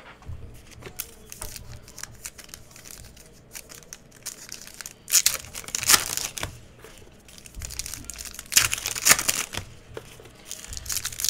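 Foil trading-card pack wrappers of 2019 Panini Diamond Kings baseball crinkling and tearing as the packs are ripped open, with the loudest crackling rips about five and nine seconds in.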